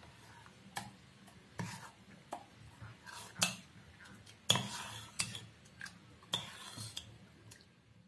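Steel ladle knocking and scraping against a stainless steel bowl while stirring thick mango pulp: about ten irregular clinks and scrapes, a few of them ringing briefly.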